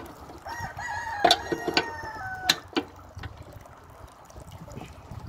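A rooster crows once, a long call of about two seconds that drops slightly at its end. Several sharp metal clicks sound under it as the screw press's iron bars are set in place.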